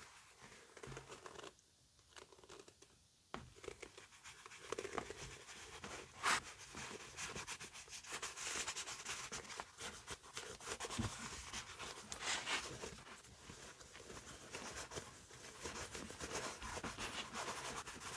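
Cotton cloth rubbing cream polish into the leather of a Dr. Martens oxford shoe: irregular scratchy rubbing strokes, with a short lull about two seconds in and a single sharper tick around six seconds.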